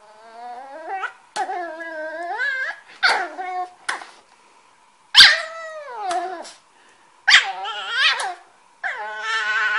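Cavalier King Charles Spaniel puppy whining and yipping in protest at being held and kissed: about six drawn-out cries that waver up and down in pitch, with short gaps between them, the loudest starting about five seconds in.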